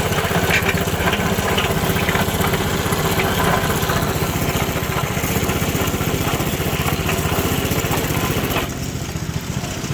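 A Coleman mini bike's small single-cylinder engine running steadily, easing off and getting quieter near the end. It still makes the odd noise that greasing the clutch did not cure, which the owner takes for something inside the engine.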